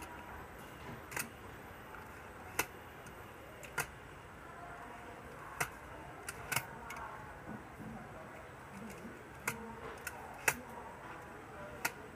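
Train wheels clicking sharply over rail joints and points as the coach rolls slowly, a click every second or two at uneven spacing, over a low steady rolling noise.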